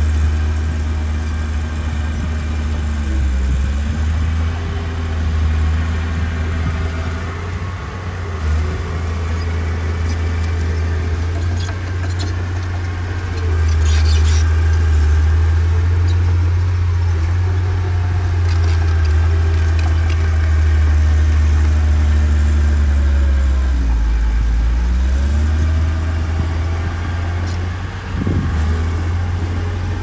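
Diesel engine of heavy earthmoving machinery running steadily with a deep hum. Its pitch dips and recovers about three seconds in and twice near the end.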